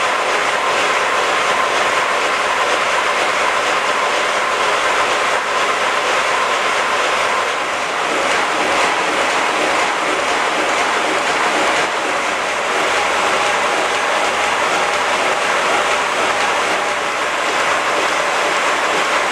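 5 inch gauge model LNER L1 2-6-4T tank locomotive running on a rolling road, its driving wheels and motion turning on the rollers: a steady, unbroken rushing hiss.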